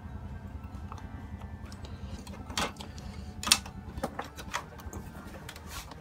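Handling noise as a soldering job ends and the TV's mains plug is picked up: a few sharp clicks and knocks, the loudest about three and a half seconds in, over a steady low hum.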